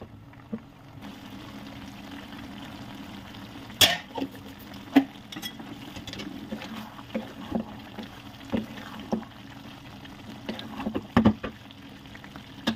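Wooden spatula stirring bottle gourd and chicken curry in an aluminium pot, knocking and scraping against the pot at irregular moments over a steady simmering sizzle.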